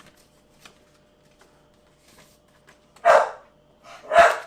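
A dog barking twice, two short loud barks about a second apart near the end, after a few faint ticks.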